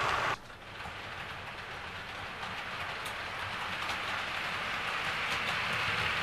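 Model railway train running on its track, a steady rushing noise with a low hum underneath. It cuts off abruptly about a third of a second in, then returns quieter and slowly grows louder.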